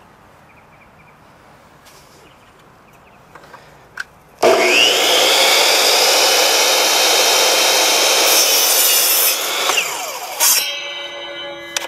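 Electric miter saw switched on about four seconds in, its motor whining up to speed. It runs loudly while the blade cuts a 45-degree miter through a wooden board, then is switched off near the end and winds down.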